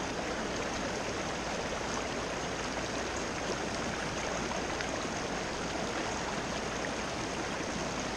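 River water rushing past rocks in the shallows, a steady even rush.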